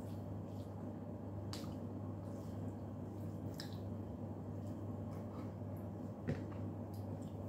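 Quiet eating sounds of food being picked from a plate with the fingers and chewed: a few light clicks, the loudest a little after six seconds in, over a steady low hum.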